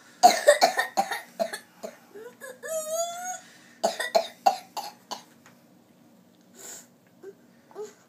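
A young child's coughing spell from pertussis (whooping cough). A rapid run of coughs is followed by a high-pitched whoop rising in pitch, then a second run of coughs before the spell eases.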